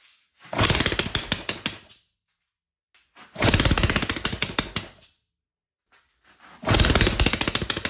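Homemade 3D-printed 180cc single-cylinder four-stroke engine started three times, each time firing in a fast run of sharp bangs for about two seconds and then dying. The owner puts the short runs down to fuel starvation: the leaking tank is not filling the carburettor bowl.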